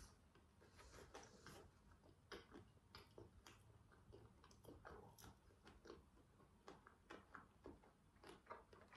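Faint, close-up chewing of a McDonald's cheeseburger: soft, irregular mouth clicks, a few a second.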